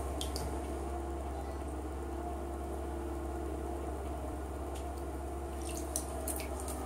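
Bath bomb in bathwater, with short splashy clicks near the start and a cluster of small crackles near the end, over a steady low hum that is the loudest sound throughout.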